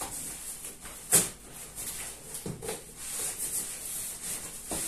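Large cardboard box being opened by hand, its flaps pulled back and rustling, with one sharp knock about a second in and a few lighter knocks later.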